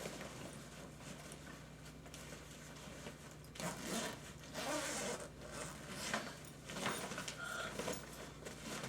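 Zipper on a tool bag being opened in several short pulls, starting a few seconds in.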